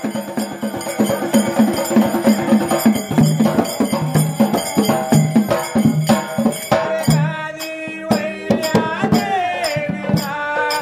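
Folk percussion ensemble playing a fast, steady rhythm on a dhol, small hand cymbals and a metal drum. A man's singing voice comes in about seven seconds in.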